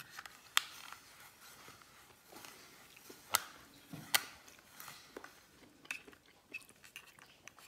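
Rotary cheese grater grating hard cheese: a faint scraping rasp broken by a few sharp clicks.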